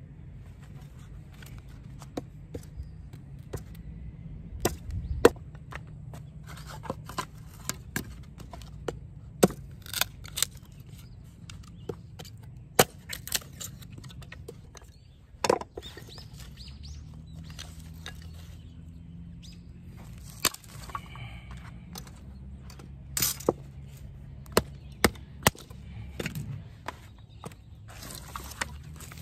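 Small hatchet splitting thin pieces of wood into kindling on a wooden chopping round: irregular sharp knocks and cracks of the blade biting and the wood splitting, a few of them much louder, over a low steady hum.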